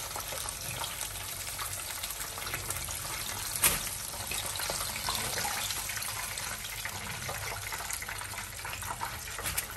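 Chicken pieces frying in a pan of hot oil: a steady sizzle with fine crackling. A single sharp click comes about three and a half seconds in.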